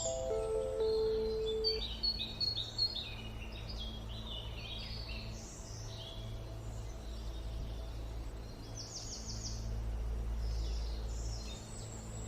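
Songbirds chirping and singing in quick, busy phrases over a steady low drone. A few held musical notes fade out about two seconds in.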